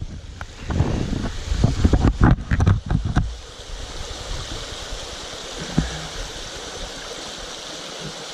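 Mountain stream rushing steadily over rocks. For the first three seconds, loud low rumbling and knocks from movement close to the body-worn microphone lie over it, then the water is heard alone, with one more knock near the end.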